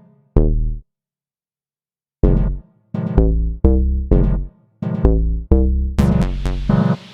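Electronic music: short synthesizer notes with deep bass, coming in separate strokes with dead silence between some of them. A steady hiss comes in about six seconds in.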